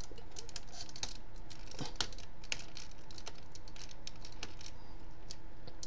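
Irregular small clicks and taps of plastic parts on an MP-10 Optimus Prime transforming figure as it is handled and pieces are pushed into place, a few per second, with one sharper click about two seconds in.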